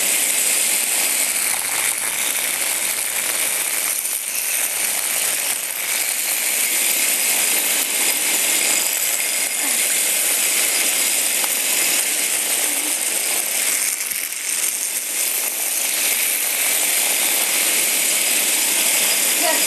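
Several Hexbug Bobble Bots, small vibration-motor toys, buzzing and rattling steadily on a hard floor.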